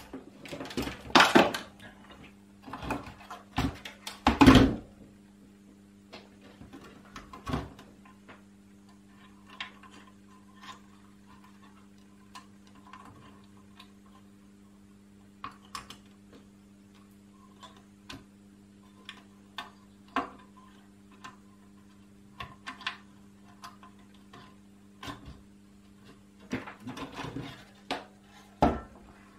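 Spring-loaded desoldering pump firing on a C64C circuit board: a few sharp snaps with a short rush of air in the first five seconds. After that come scattered light clicks and taps of tools and the board being handled, over a steady low hum.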